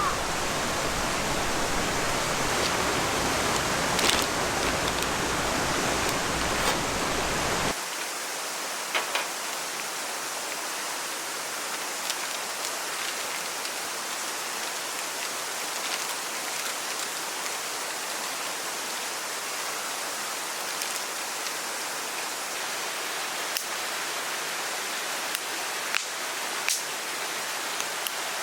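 Rushing water, a full steady roar for about eight seconds, then an abrupt cut to a thinner, steadier hiss with scattered sharp ticks.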